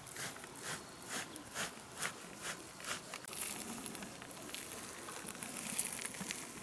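Faint outdoor ambience: a regular high chirp or tick about twice a second for the first three seconds, then a faint steady high crackling hiss.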